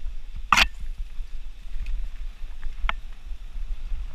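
Mountain bike rolling along a dirt singletrack, heard from a helmet-mounted camera as a steady low rumble of tyres and wind buffeting the microphone. A short sharp noise about half a second in and a fainter one near three seconds.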